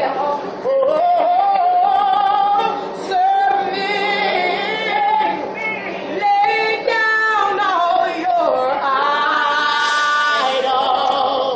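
A woman singing unaccompanied, with strong vibrato on sustained notes, holding one long note near the end before the melody drops.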